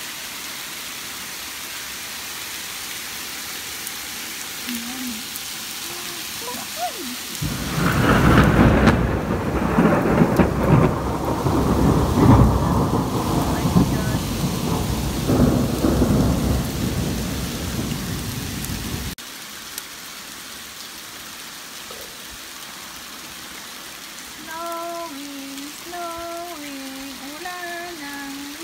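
Rain and hail falling in a steady hiss. About seven seconds in, a loud rumble of thunder sets in and runs for some eleven seconds before cutting off abruptly. Near the end a faint sequence of stepped pitched notes is heard over the rain.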